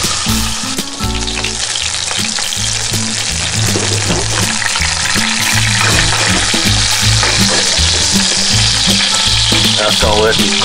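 Prime rib roast searing in hot oil in a cast iron Dutch oven, sizzling steadily as its fat renders out.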